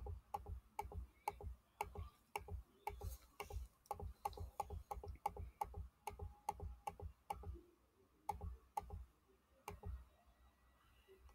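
Faint, quick computer mouse clicks, about four a second, clicking through a slide presentation's animations; they stop shortly before the end.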